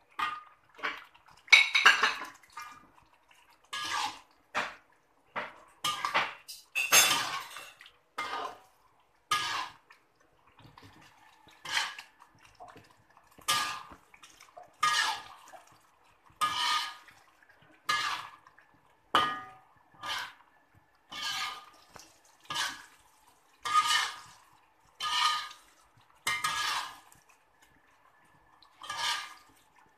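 Metal slotted spatula scraping and knocking against a metal wok while stirring chicken pieces through thick rendang sauce, in repeated strokes about every second and a half, the wok ringing faintly with each stroke.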